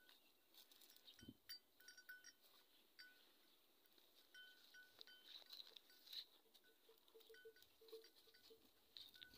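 Near silence: faint clicks and crackles of a dromedary camel browsing a leafy shrub, with faint short high chirps scattered throughout.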